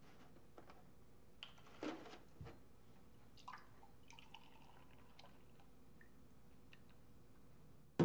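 Milk poured from a plastic gallon jug into a glass tumbler, with soft knocks of the jug being handled. A sharp knock right at the end as the jug is moved back onto the counter.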